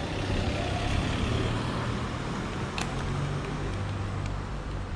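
City street traffic: a motor vehicle running close by with a steady engine hum, over road noise, with a few faint clicks about halfway through.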